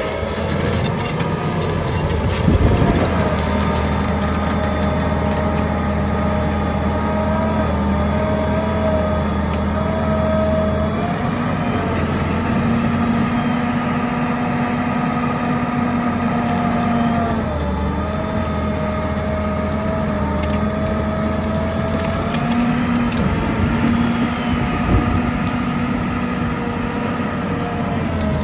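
John Deere 850 crawler dozer's diesel engine running under load, its pitch stepping up and down several times as the revs change, with a thin high whine over it. There is a brief clatter of knocks about two to three seconds in.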